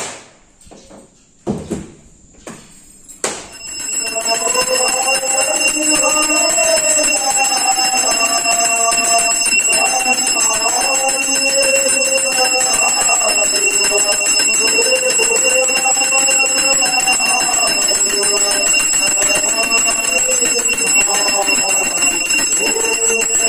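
Priest chanting the morning aarti into a microphone, amplified, with a continuous high bell-like ringing tone sounding under the singing. Both start together about three seconds in, after a few faint knocks.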